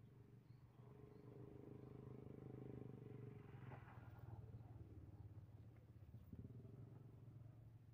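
Faint hum of a distant engine, swelling about a second in and easing off over the next few seconds, with a couple of faint bird chirps.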